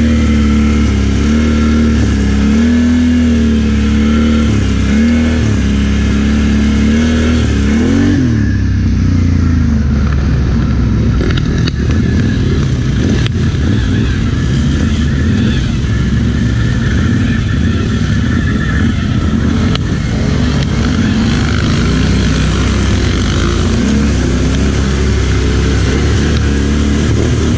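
ATV engine running, its revs rising and falling for about the first eight seconds, then a rougher, noisier stretch with no clear pitch.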